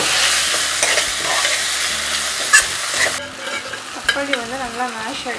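Chopped tomatoes sizzling in hot oil in a metal kadai while a steel spoon stirs them, clicking and scraping against the pan. About three seconds in, the loud sizzle cuts off abruptly to a quieter one.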